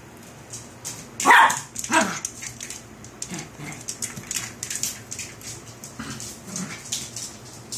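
Small puppy giving two sharp yips about a second in, each falling in pitch, followed by softer whines and growls of puppies at play. Light rapid clicks of claws on a hard floor run underneath.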